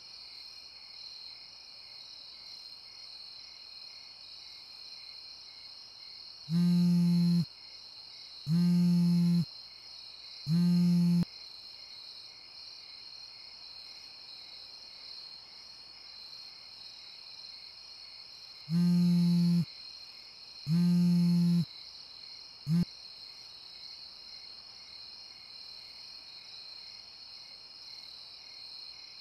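Crickets chirping steadily, with a low-pitched horn giving three long honks, then two more after a pause, then one short toot.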